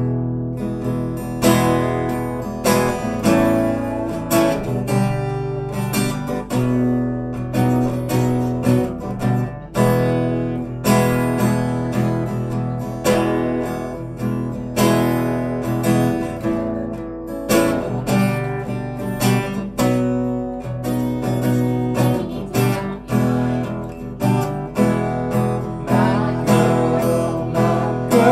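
Acoustic guitar strummed in a steady, even rhythm, playing the chords of a song and amplified through a PA speaker.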